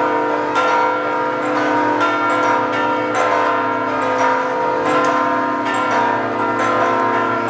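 Church bells pealing, many overlapping strokes with their tones ringing on, the pitches changing every second or two.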